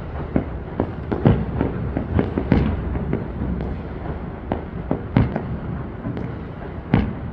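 Fireworks display: a dense, irregular string of bangs from bursting aerial shells, several each second, over a low rumble, with the loudest bangs about a second in, about five seconds in and near the end.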